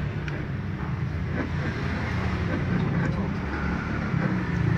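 Steady low rumble of a motor vehicle engine running, with a few faint small clicks from a screwdriver working a screw in a wiper-switch stalk.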